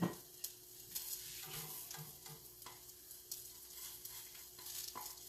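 Egg frying in a buttered slice of bread in a pan, sizzling steadily, with a few light clicks of a utensil, the sharpest right at the start.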